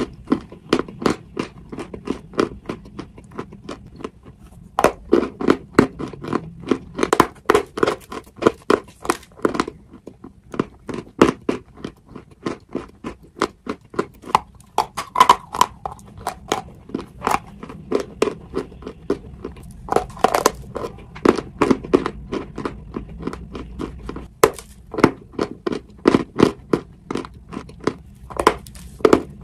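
Close-miked biting and chewing of dry white chalk blocks: rapid series of sharp crunches, a few each second, coming in runs with short pauses between.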